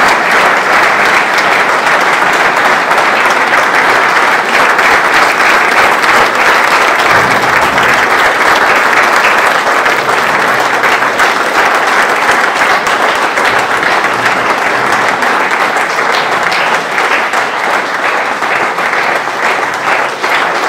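Audience applauding steadily, thinning out into more separate claps near the end.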